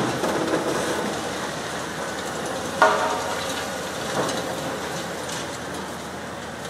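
Demolition excavator crushing a reinforced-concrete building: continuous crackling and crumbling of falling concrete rubble, with a sharp metallic clang about three seconds in and a smaller knock about a second later.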